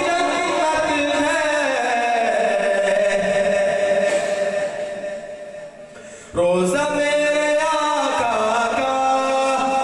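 A man singing a naat, an Urdu devotional poem, into a microphone in long drawn-out melodic phrases. The voice fades away about five seconds in and comes back strongly about a second later.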